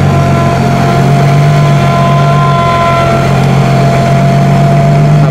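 Heavy earthmoving machine's diesel engine running steadily under load, with a steady high whine over the low hum.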